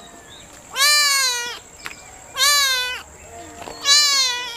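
Young white Persian kitten meowing three times, each meow loud, rising and then falling, about a second and a half apart.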